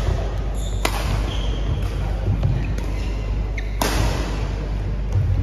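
Badminton rally: rackets striking the shuttlecock with sharp cracks, the loudest about a second in and near four seconds, with lighter hits between, and players' feet thudding on the court in a reverberant hall.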